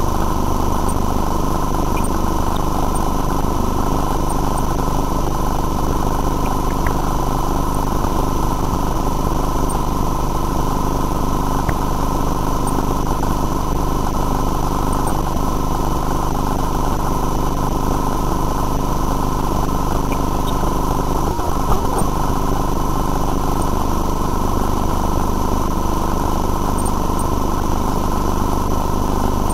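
Steady machine drone with constant hum tones from sewer-inspection camera equipment, unchanging throughout, with one brief knock about two-thirds of the way through.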